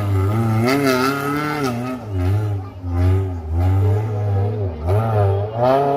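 Petrol off-road vehicle's engine revving and labouring on the course, its note rising and falling repeatedly over a steady low drone.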